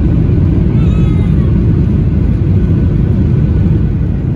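Steady, loud low rumble of a Boeing 737-800 heard from inside the passenger cabin.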